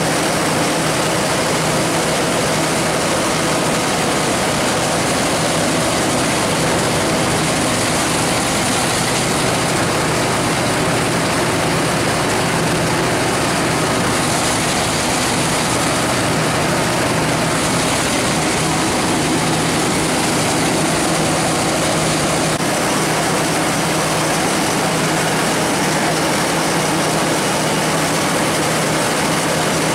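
Electronically injected diesel engine of a LOVOL 130 combine harvester running steadily at a constant speed, with a dense, even mechanical drone.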